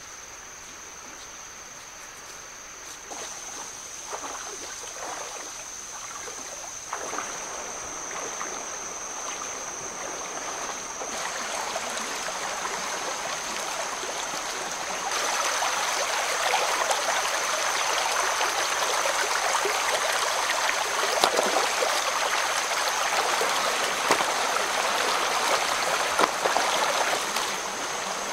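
Forest stream flowing and trickling over rocks, getting louder in steps, with a steady high-pitched whine running throughout.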